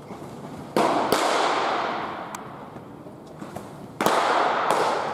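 Pitched baseballs smacking into catchers' mitts, two loud pops echoing through an indoor bullpen and dying away slowly, with a few lighter smacks between them.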